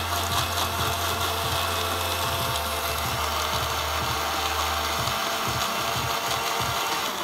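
Electric countertop blender running steadily at full speed, blending a thick mix of KitKat chunks, vanilla ice cream and milk into a smooth milkshake; it stops at the very end.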